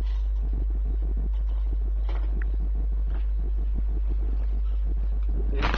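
A strong steady low hum runs under handling noise: scattered small knocks and rustles of an HDMI cable and its packaging being opened and handled, with a louder knock near the end.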